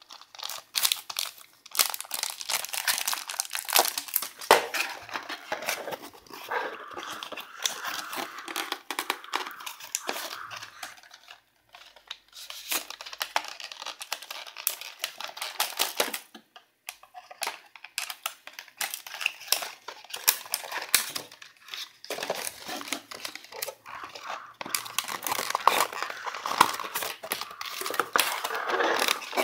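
Cardboard and paper packaging of a webcam box being handled and pulled apart: crinkling, rustling and tearing with many small clicks and scrapes. It pauses briefly twice around the middle.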